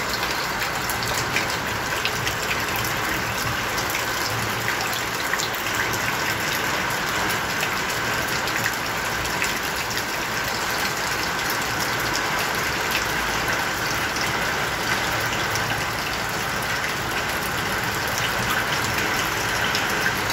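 A steady rushing, hissing noise with faint scattered ticks, unchanging in level throughout.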